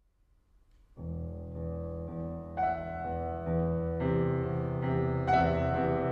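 Piano playing slow, sustained low chords, starting about a second in and building as new notes enter every second or so.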